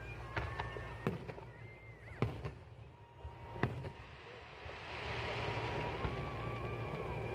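Fireworks going off: a handful of sharp bangs spread out, with thin whistling tones, and a steady hiss that comes in about halfway through.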